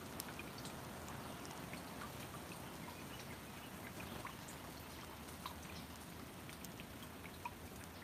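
Steady faint trickle of running water, with small scattered drips ticking irregularly over it.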